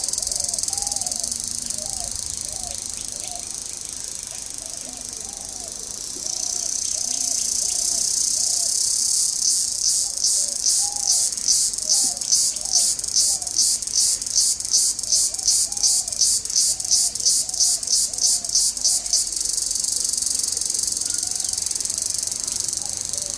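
A high-pitched insect chorus buzzing steadily, which breaks into an even pulse of about three beats a second through the middle. Under it, short bird calls are repeated about twice a second.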